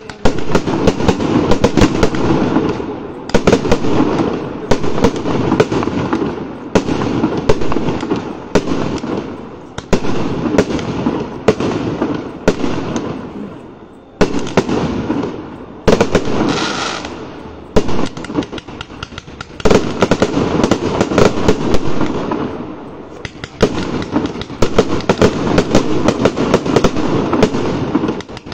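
Aerial fireworks display: a dense, rapid barrage of bangs and crackling from shells bursting and launching, coming in loud surges every two to three seconds with brief lulls between.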